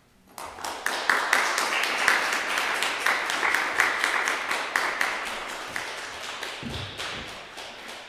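Audience applauding, starting half a second in and fading slowly toward the end. A single low thud comes about two-thirds of the way through.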